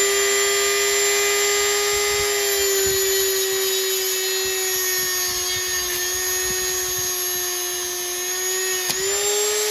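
High-speed rotary tool with an abrasive cut-off wheel running steadily, its whine sagging slightly under load as it cuts off the excess of a thread repair in a transmission case. About nine seconds in there is a sharp snap and the motor speeds up, the sign of the cut-off wheel breaking.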